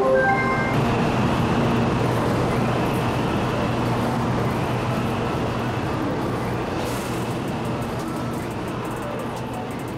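Steady rushing noise and low hum of a Taiwan High Speed Rail 700T train standing at an underground platform, slowly fading. A short chime breaks off just after the start.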